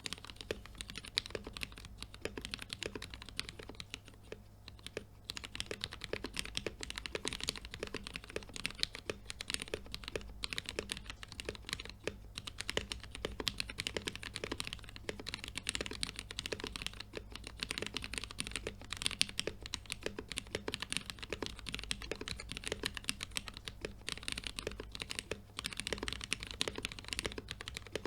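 Continuous fast typing on a mechanical keyboard with Cherry MX Black Hyperglide linear switches and POM keycaps: a dense patter of key clacks, with a brief lull about four seconds in.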